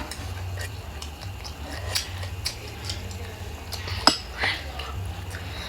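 A few light clicks and taps of utensils against dishes, spread out, over a steady low hum.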